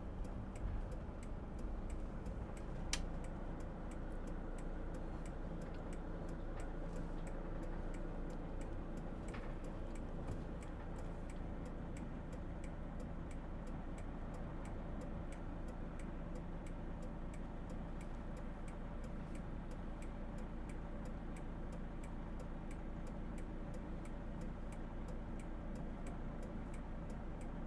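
Steady, rapid, even ticking inside a van's cab, over the low steady rumble of the engine.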